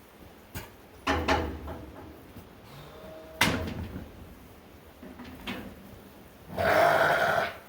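Clanks and knocks of sheep chute equipment being handled: a pair of knocks about a second in, a sharp ringing clank midway, and a longer, louder rattle near the end.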